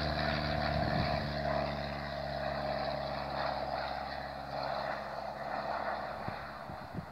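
Twin CFM56-3 turbofans of a Boeing 737-400 at takeoff climb power, a steady jet roar with a low drone beneath it, slowly fading as the airliner climbs away.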